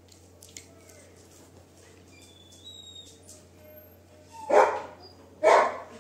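A dog barks twice, about a second apart, near the end.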